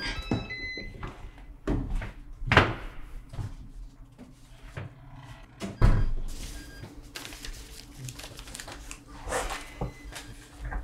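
A digital door lock beeping as the door opens, then door and furniture knocks, the loudest a thump about six seconds in. Near the end, paper rustling as papers are pulled from an envelope.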